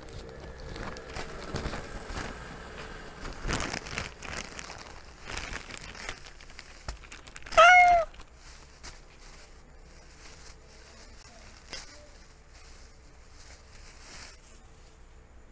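A cat meows once, briefly, about halfway through; the call arches up and then down in pitch and is the loudest sound. Before it come light rustling and scattered clicks.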